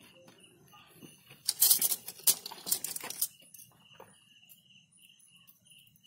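Dry leaf litter and nylon netting rustling and crackling as they are handled and pulled, loudest in a burst of sharp crackles from about one and a half to three seconds in. After that, a high chirp repeats steadily two or three times a second over faint rustling.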